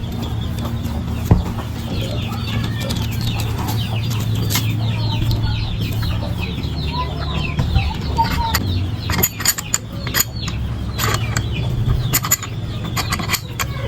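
Chickens clucking and chirping, with a steady low hum underneath. In the second half comes a run of sharp clicks and taps.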